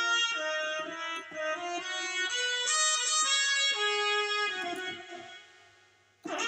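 Roland XP-60 synthesizer played with a reedy, accordion- or harmonica-like patch: a melody of sustained notes over chords, which fades out about five seconds in. A new note with a sharp, plucked attack starts just before the end.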